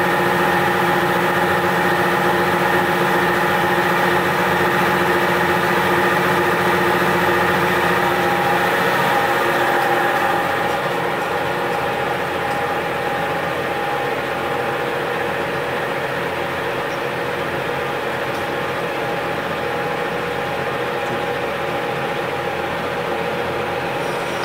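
UMM-20 hydraulic testing machine running under load as it slowly compresses a wooden cube across the grain: a steady motor-and-pump hum with several constant tones. It gets somewhat quieter about ten seconds in.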